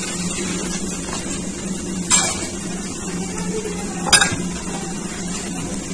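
Two sharp clinks of kitchenware, about two seconds apart, each with a short ring, over a steady low background hum.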